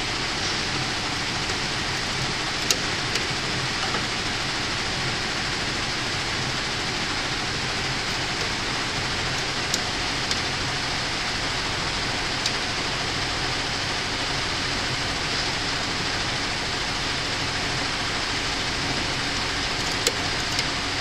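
Steady machine noise of embroidery machines running, with a few short sharp clicks as embroidery hoops are fitted onto the machine's frame arms.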